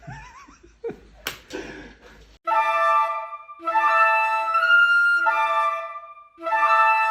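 A flute melody of held notes in short phrases, starting about two seconds in after a few brief noises and a sharp click.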